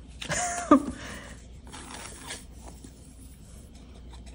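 A brief wordless vocal sound that rises and then falls in pitch within the first second, followed by faint rustling and rubbing of card stock and paper scraps being handled on a desk.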